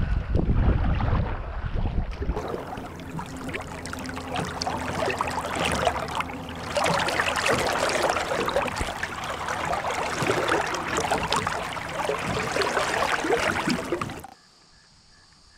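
Kayak being paddled with a double-bladed paddle: steady splashing and dripping of water from the paddle strokes. It cuts off suddenly about fourteen seconds in.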